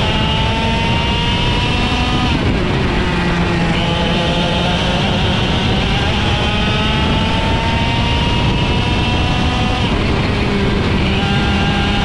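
IAME X30 125cc two-stroke kart engine at full throttle, its pitch climbing steadily down a straight. It drops suddenly about two and a half seconds in and again near ten seconds as the driver lifts for a corner, then climbs again.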